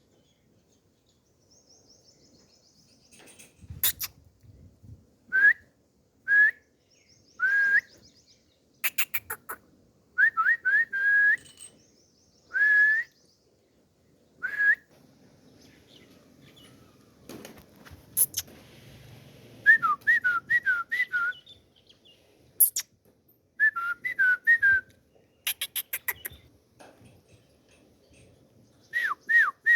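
Short whistled bird chirps, each a quick rising-and-falling note, heard singly and in quick runs of three to five, with sharp clicks between them.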